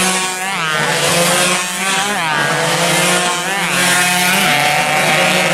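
Several two-stroke 116cc underbone race motorcycles passing close at full throttle one after another, each engine's pitch rising and then swooping down as it goes by, about three times. Other bikes on the circuit keep up a steady drone underneath.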